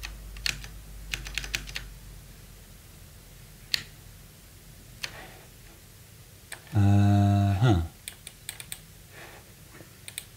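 Scattered computer keyboard clicks in short runs. About two-thirds through, a steady low hum lasting about a second is the loudest sound.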